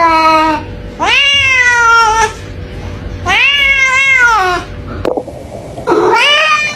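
Cat meowing in long, drawn-out calls that rise and then fall in pitch: the end of one meow, then three full meows, with a fourth starting near the end.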